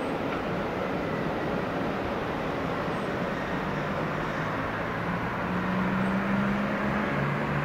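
Steady outdoor rumble of railway and city traffic as an EN71 electric multiple unit pulls away. A low, steady engine hum comes in about halfway through and grows louder near the end.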